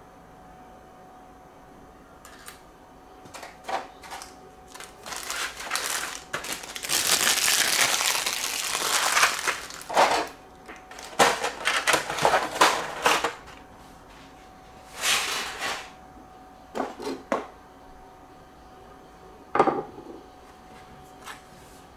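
Clear plastic wrapping crinkling and rustling in bursts as a model airplane is unwrapped from its plastic tray, densest and loudest through the middle. Near the end comes a single sharp knock as the plastic model plane is set down on the desk.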